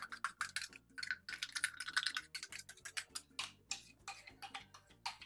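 A spoon scraping and tapping against a mixer jar as ground tender coconut pulp is emptied into a vessel: a faint, rapid, uneven run of light clicks, about five a second.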